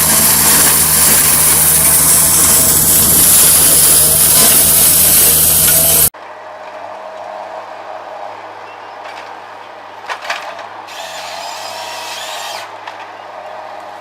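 A machine running loudly and steadily with a constant hum, cut off abruptly about six seconds in. After that come quieter mechanical sounds, with a few clicks and short hisses.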